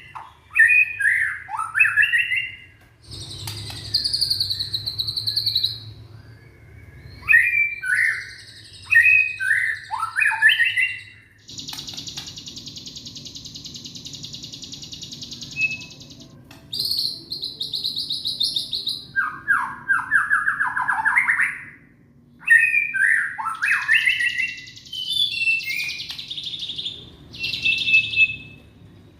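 Young white-rumped shama singing a varied, loud song of quick sweeping whistled notes and buzzy trills, with one long, even buzzing rattle of about four seconds in the middle.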